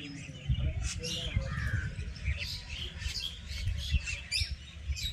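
Several birds chirping in many short, quick calls that overlap, over a low, uneven rumble.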